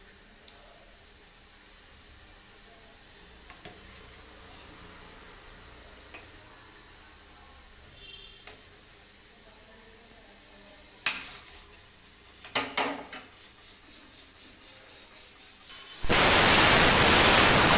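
Pot of rice at the boil giving a faint steady hiss, with a few light ticks. Past the middle comes a run of quick knocks, about two or three a second. Near the end a loud, even rushing noise lasts about two seconds.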